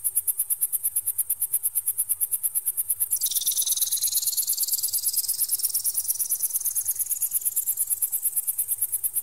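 High-pitched electronic bird-repeller sound: a rapid, even pulsing beep, joined about three seconds in by a tone that drops sharply and then slowly sweeps back up.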